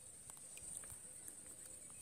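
Quiet outdoor ambience at a pond: a steady, faint, high-pitched whine with a few soft clicks.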